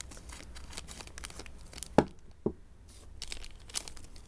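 Clear plastic bag crinkling and crackling as it is handled, with two sharp knocks about two seconds in, half a second apart.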